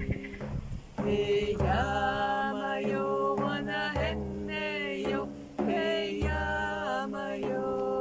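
Two women singing a repetitive chant in phrases, accompanied by a hand-held frame drum beaten slowly, a deep boom about every two seconds.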